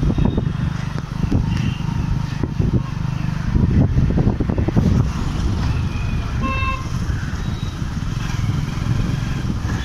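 Motorcycle engine running steadily as it rides along, a low rumble. A vehicle horn toots briefly about six and a half seconds in.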